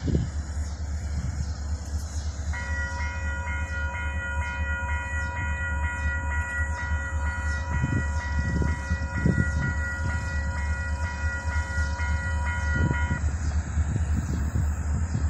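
Railroad grade-crossing warning bell set off by an approaching train, ringing in a fast, even run of dings while the gates lower. It starts about two and a half seconds in and stops shortly before the end, over a low steady rumble.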